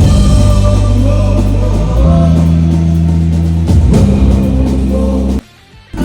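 Loud band music with guitar over long held bass notes, cutting out suddenly near the end for about half a second.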